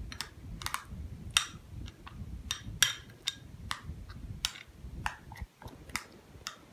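A small spoon stirring a thick paste of mashed banana, ground flaxseed and yogurt in a white scalloped porcelain bowl. The spoon clicks irregularly against the bowl, about three times a second, over a soft low rustle of the mixing.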